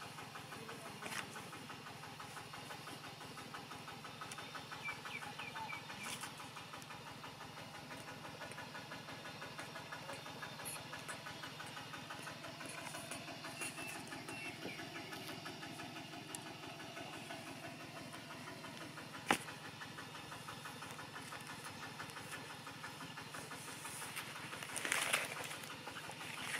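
A motor running steadily with a fine rapid pulse and an even hum. A single sharp click past the middle and a brief louder rustle near the end.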